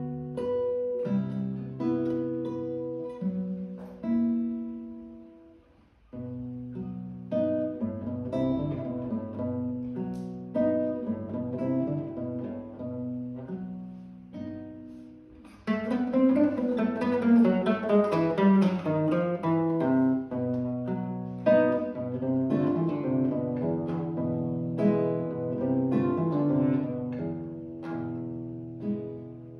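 Solo classical guitar playing a classical piece. The music stops briefly about six seconds in, and a sudden louder, denser passage of quick notes begins about halfway through.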